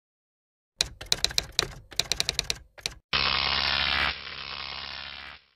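Typewriter keystroke sound effect: a quick run of sharp clacks for about two seconds, followed by a sustained bright tone that drops in level after about a second and then cuts off.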